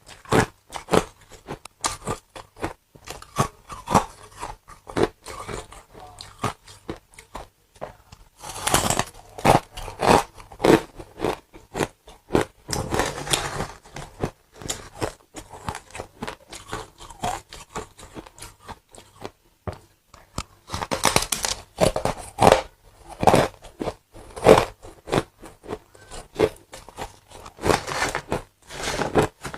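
Close-up biting and chewing of ice: irregular crisp crunches and cracks, with louder clusters of crunching every few seconds.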